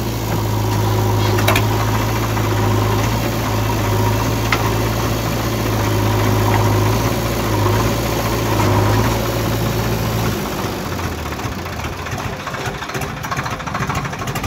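Swaraj 744 XT tractor's diesel engine pulling a trolley fully loaded with soil, with a backhoe loader's engine running close by. A steady low engine drone that changes and drops in pitch about ten seconds in.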